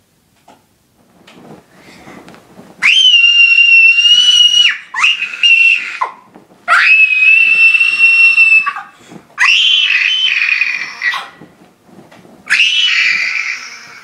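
A girl screaming: five long, very high-pitched screams, each held a second or two at a fairly steady pitch, with short gaps between them.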